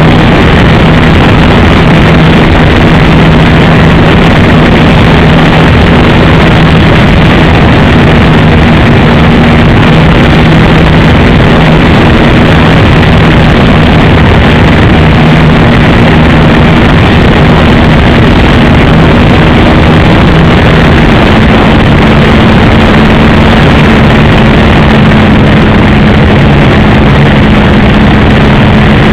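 RC model Piper J-3 Cub's engine running with a steady drone under heavy rushing noise, very loud and near overloading the recording. Its pitch shifts slightly about two-thirds of the way through.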